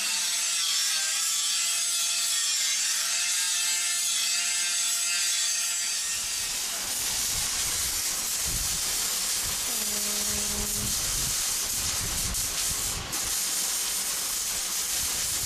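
Loud steady hiss of a compressed-air tool working on a steel truck frame, with a lower rumble joining about six seconds in.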